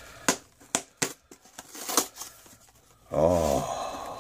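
Cardboard shipping box being torn open by hand: a few sharp rips and clicks of tape and cardboard, then about three seconds in a louder creaking scrape as the flaps are pulled back.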